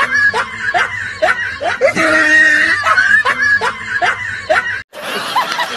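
Laughter sound effect looped: short rising "ha" syllables about two or three a second, the same stretch repeating, cutting off sharply near the end.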